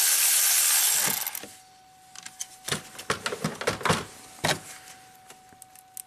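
Milwaukee cordless electric ratchet running on the ignition coil bolt for about a second, then stopping. It is followed by a series of sharp clicks and knocks as the coil and nearby parts are handled.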